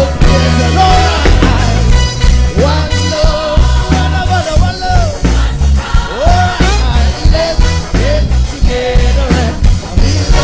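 Live reggae music: a heavy bass line and a steady beat, with a wavering melody line over them.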